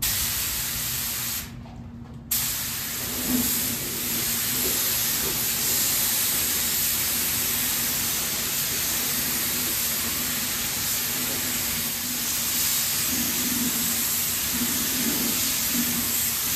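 3M compressed-air paint spray gun spraying a coat of paint: a steady, loud hiss of air and atomised paint. It stops briefly about a second and a half in, then runs on unbroken.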